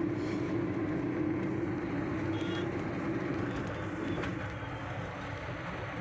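Steady drone of road traffic and the car's own engine and tyres, heard from inside a moving car, with a brief faint high tone about two and a half seconds in.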